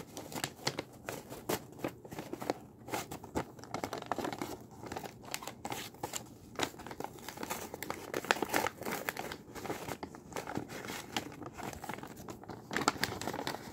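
A sheet of paper crinkling and rustling as it is handled and bent, with irregular sharp crackles.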